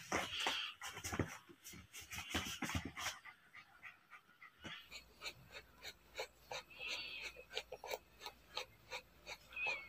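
Mixed-breed Japanese Spitz × Shih Tzu bitch in labour panting hard and fast, about three pants a second. The heavy panting is a sign that whelping is near.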